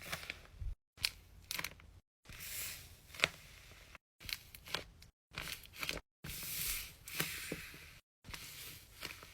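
Hands handling and squeezing squishy toys close to the microphone: soft rustling and scratching with sharp little taps and clicks. It comes in short snippets of under a second each, cut apart by abrupt silent gaps.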